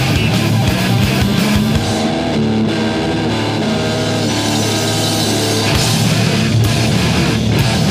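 Recorded post-hardcore/noise rock: distorted electric guitar and bass over a drum kit. About two seconds in the drums fall back, leaving ringing guitar chords, and they come back in hard near the end.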